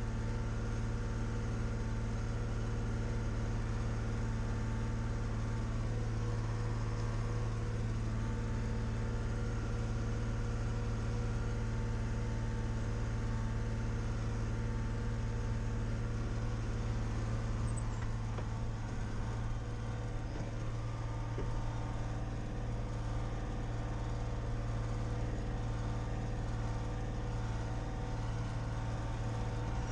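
Deutz-Fahr DX6.05 tractor's air-cooled six-cylinder diesel engine running steadily with a deep, even drone.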